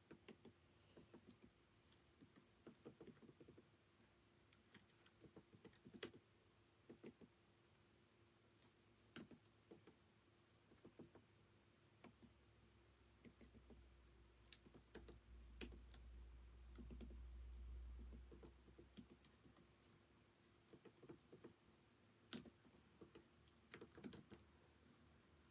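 Faint typing on a computer keyboard: irregular runs of key clicks with short pauses between them. A low rumble swells and fades in the middle.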